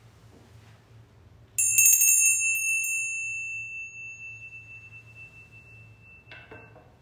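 Small hand bell, a sacristy bell, shaken with a quick flurry of strikes, then left ringing and fading out over several seconds, signalling the start of Mass. A brief clatter follows near the end.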